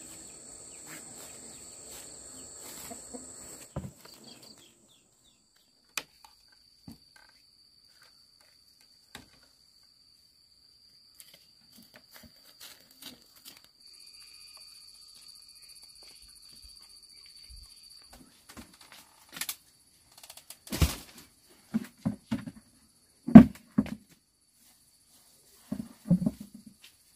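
Insects, crickets or cicadas, keep up a steady high-pitched trill. In the last several seconds come a series of knocks and thumps, the loudest about three-quarters of the way through, as things are handled and set down in a bamboo hut.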